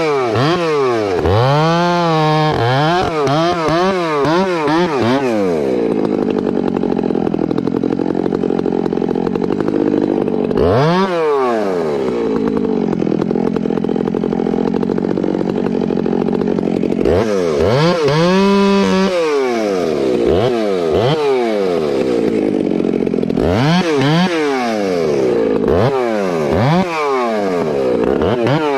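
Makita gas chainsaw bucking a conifer log: the engine revs up and down between cuts and runs at steady full throttle under load through two long cuts in the middle, then through shorter cuts near the end.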